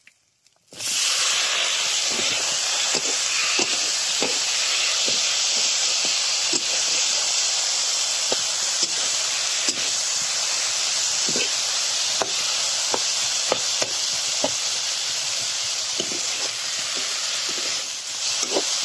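Sliced tomatoes hit the hot oil and spice mixture in an iron kadai and start sizzling loudly about a second in, a steady hiss. A metal spatula scrapes and taps against the pan again and again as they are stirred.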